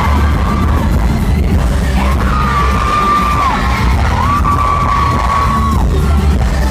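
Pop song played loud with heavy bass, recorded live. A voice holds three long high notes in a row, each falling away at its end, with yelling and whooping mixed in.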